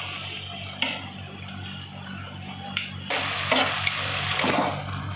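Grilled chicken wings put into a pan of hot yogurt sauce with metal tongs: a couple of single clicks of the tongs on the pan. Then, from about three seconds in, louder sizzling and stirring with more clinks.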